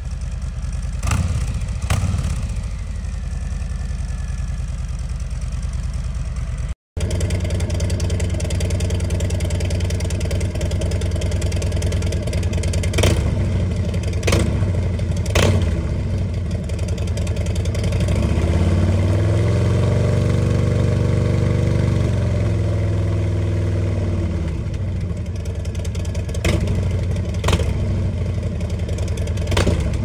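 Harley-Davidson Low Rider S's Milwaukee-Eight 114 V-twin idling, first through the stock exhaust and then, after a cut about seven seconds in, through a Two Brothers Racing Comp-S 2-into-1 exhaust with a PowerVision tune. In the second part the engine revs up slowly, holds for a couple of seconds and drops back to idle. A few short sharp cracks come through the idle.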